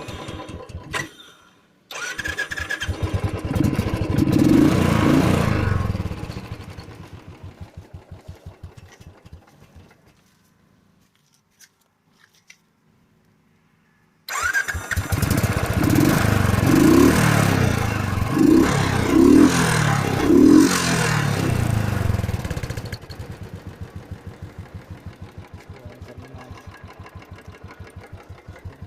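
Royal Enfield Thunderbird 350's single-cylinder engine starting, revving and then being switched off, its firing slowing and dying away. After a quiet pause with a couple of clicks it starts again, is blipped several times, and settles into a steady idle.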